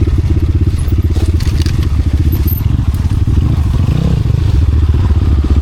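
Motorcycle engine running loud and close at a steady low speed, with a slight swell in revs about four seconds in.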